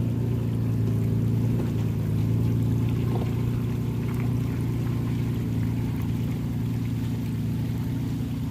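Pickup truck engine running steadily with a constant drone, with a few faint knocks around the middle.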